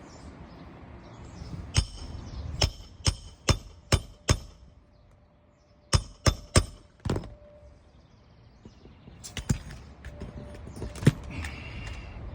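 A series of sharp knocks in uneven groups: six in quick succession, then four more after a pause, then two single ones near the end.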